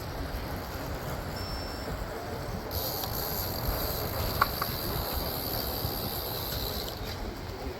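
Wind rumble and road noise on a moving electric scooter in city traffic. A steady high whine joins in about three seconds in and stops about a second before the end, with a single sharp click midway.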